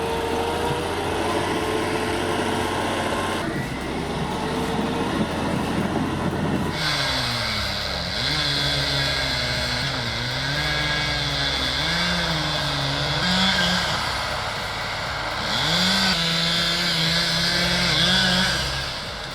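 Engine running, the sound changing abruptly twice in the first seven seconds; from then on its pitch rises and falls unevenly.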